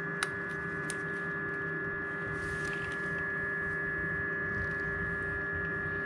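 Steady electrical hum made of several held tones, with a light click about a quarter of a second in.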